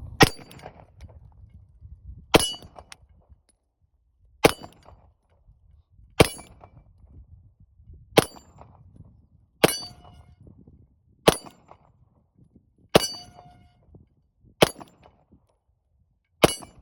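Ten shots from a Beretta 92FS 9mm pistol, fired one every one and a half to two seconds. Each is followed by the ring of the steel target being hit.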